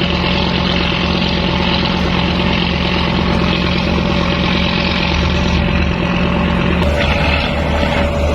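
A ship's engine running steadily with a low droning hum as the boat is brought alongside the quay. About seven seconds in the note shifts: the low hum drops away and a higher steady tone comes in.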